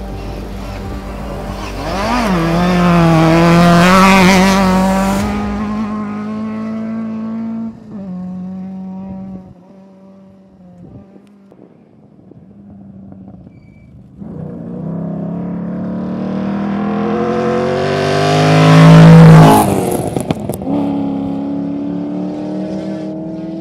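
Two rally cars passing one after the other at speed on a dirt stage. Each engine grows louder as the car approaches and is loudest about four seconds in and again near 19 seconds in. The note of the second car drops in pitch as it goes past and then fades away. Between the two passes there is a quieter lull.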